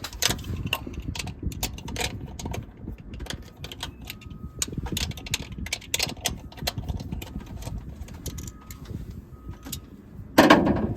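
Hand tools clicking and clattering in short irregular runs, in the manner of a ratchet working the carburetor mounting nuts loose, with a louder clunk about ten seconds in.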